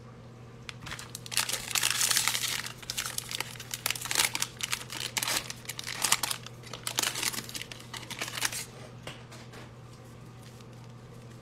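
Foil wrapper of a football card pack being torn open and crinkled by gloved hands, starting about a second in and stopping a few seconds before the end.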